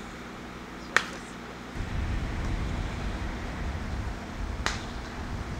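Two sharp cracks of a baseball being struck: a fungo bat hitting a ball about a second in, and a weaker ball impact near the end.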